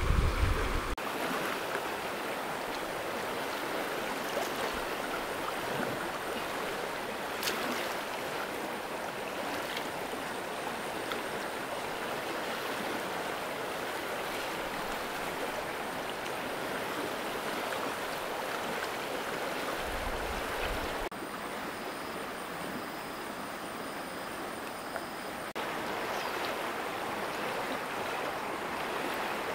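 Shallow river flowing, a steady rush of water that dips slightly in level about two-thirds through and comes back near the end.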